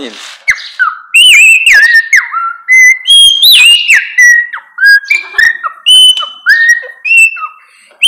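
A boy whistling an imitation of a sabiá (thrush) song: a run of clear, short whistled phrases, many sliding down in pitch.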